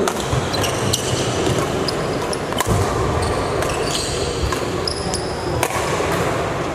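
Badminton rally: irregular sharp racket strikes on the shuttlecock and short high squeaks of shoes on the court floor, over steady background noise.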